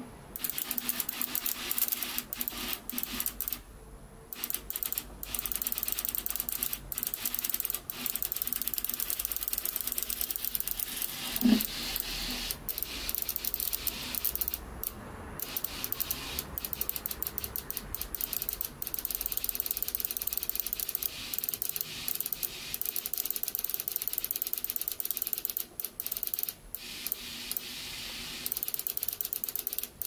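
BMW E46 (M54) fuel injector on a bench rail clicking rapidly as its solenoid is pulsed, spraying cleaning fluid into a cup. The clicking stops for brief moments now and then, and there is one short louder blip about halfway through.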